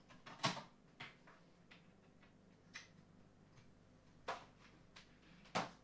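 A few faint, scattered clicks and taps from hands working the Amiga 600's external floppy drive as a disk is loaded.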